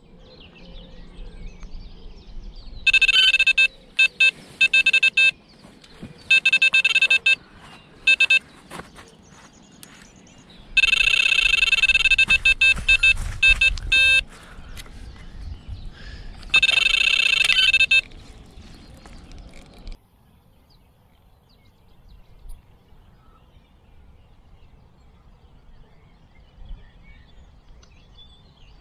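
Electronic carp bite alarm sounding in six irregular runs of rapid high beeps, the longest lasting about three seconds, all over within the first eighteen seconds. This is the signal of line moving on the rod, a take or a drop-back. A steady hiss of rain lies underneath and stops at about 20 s.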